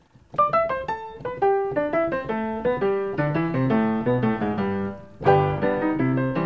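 Piano music: a quick melody of separate struck notes over a lower bass line, starting just after the opening, with a louder new phrase about five seconds in.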